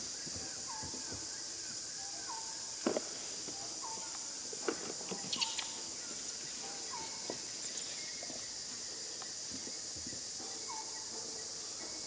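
Jungle ambience: a steady high-pitched insect buzz, with a bird repeating a short call about once a second and a few sharp clicks around the middle.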